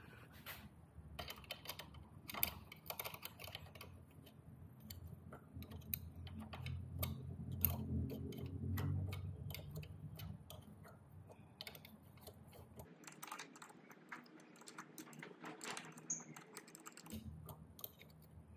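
A wrench on the rear axle and chain adjuster bolts of an electric dirt bike being worked loose: a run of irregular light metallic clicks and ticks. A low rumble swells in the middle.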